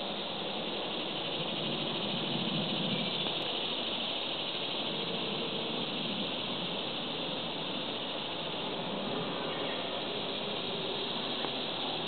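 Steady high-pitched insect chorus, a continuous hiss-like drone with no breaks.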